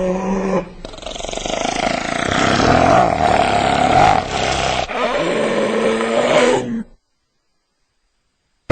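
Hyena calling: a pitched call that stops about half a second in, then about four seconds of harsh, noisy calling, then a call that bends up and down in pitch. The sound cuts off suddenly about seven seconds in.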